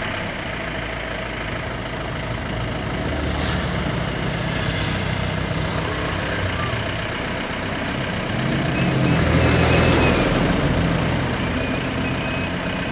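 Vehicle engine idling steadily, growing louder for a couple of seconds about nine seconds in.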